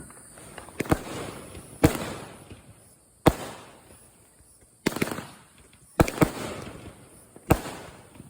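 Consumer fireworks going off: a run of about seven sharp bangs, roughly a second apart with two close together near the end, each trailing off in a short fading spread of noise.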